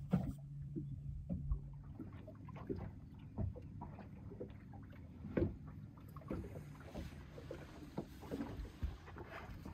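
Small aluminium fishing boat on the water: water slapping against the hull and scattered knocks and taps of gear in the boat, with a low steady hum that stops about two seconds in.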